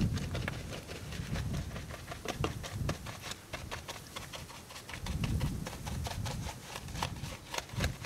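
Soapy wash mitt scrubbing the spokes of an alloy wheel: wet rubbing with an irregular patter of small clicks, over a low rumble that swells and fades.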